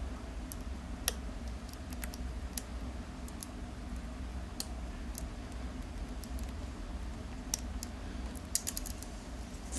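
Light, irregular clicks and ticks of a lock pick working the pin stack of a Euro cylinder lock, with a quick cluster of clicks near the end, over a steady low hum.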